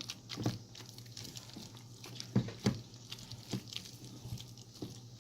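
A spatula folding a thick, cheesy chicken dip in a mixing bowl: irregular wet squelches and scrapes, with a couple of sharper knocks against the bowl a little past the middle.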